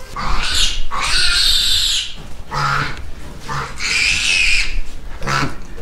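A young piglet squealing loudly as she is held and carried: two long, harsh, high squeals, each about a second or more, with a short gap between them.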